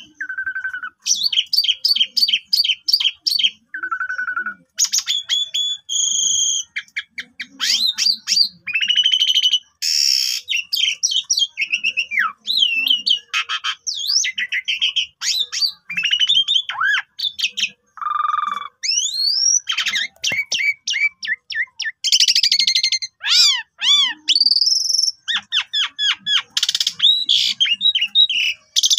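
Javan pied starling (jalak suren) singing a long, varied song: rapid runs of repeated chattering notes, whistles sweeping up and down in pitch, and harsh buzzy notes, in quick phrases with short gaps between them.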